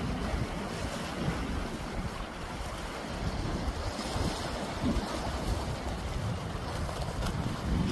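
Calm sea waves washing gently against the shore, with wind buffeting the microphone as an uneven low rumble.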